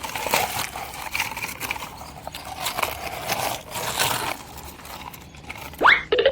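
Irregular clattering clicks and knocks, with a quick rising whistle near the end.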